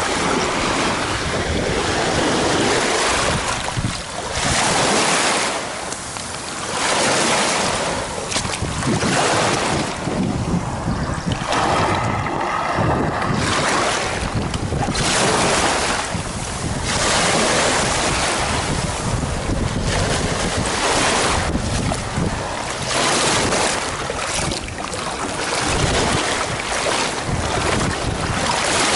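Small waves breaking and washing up a pebble-and-shell beach around a beached kayak's hull, swelling and fading every couple of seconds, with wind buffeting the microphone.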